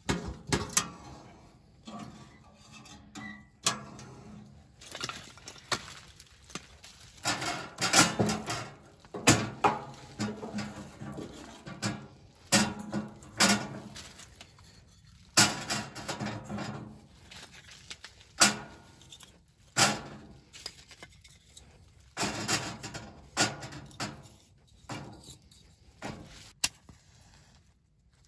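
Firewood and kindling being handled and loaded into a tent wood stove to start a fire: a long run of irregular knocks, clunks and clatters of sticks against each other and against the stove's metal, with rustling in between.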